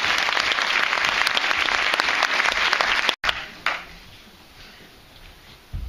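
Audience applauding, many hands clapping densely; it cuts off suddenly about three seconds in, leaving quiet room tone with a dull low thump near the end.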